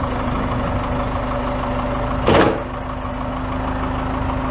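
Backhoe engine running steadily at a constant speed, with one brief louder noise about two seconds in.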